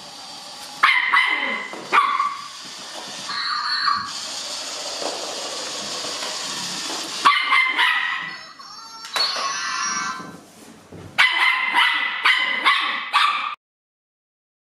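Puppy barking and yipping at a motorized Zhu Zhu Pet toy hamster: single barks spaced a few seconds apart, then a quick run of barks near the end.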